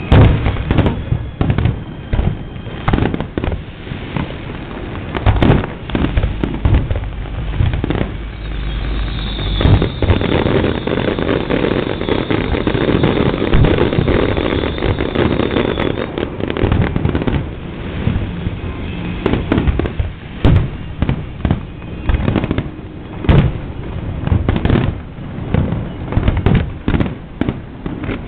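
Fireworks display: a rapid, irregular series of loud bangs and booms. About a third of the way in comes a dense stretch of continuous crackling lasting several seconds, with a steady high whistle over it.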